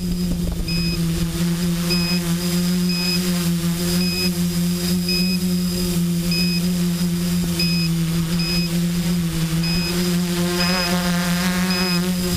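Hobby multicopter's electric motors and propellers humming steadily, heard close up from the camera on board, with a slight dip in pitch about three-quarters of the way through.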